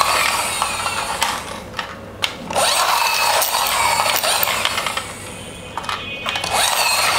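Small plastic pull-back toy car's spring motor whirring and rasping through its gears, wound by pushing it back against the mat and released to run on its own. It is wound again near the end.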